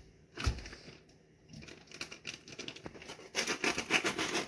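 Plastic bag of meat crinkling and rustling as it is handled, loudest near the end, with a low thump about half a second in.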